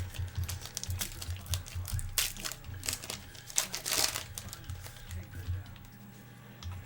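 Foil trading-card pack wrapper crinkling and tearing open, with cards being handled. The loudest rustles come a little after two seconds and again just before four seconds.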